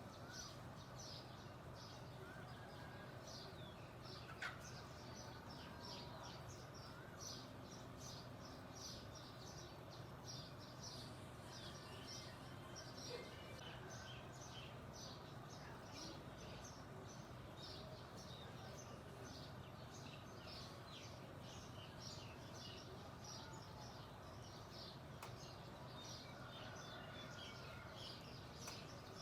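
Songbirds chirping: a steady stream of short, high chirps, several a second, over a faint, steady low background hum.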